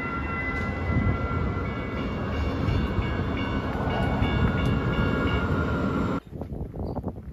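A train rumbling past with high-pitched steel wheel squeal. The sound stops suddenly about six seconds in.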